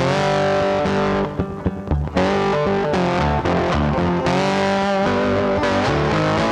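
Background rock music led by distorted electric guitar. It briefly thins out with a few sharp hits about a second in, then comes back in full.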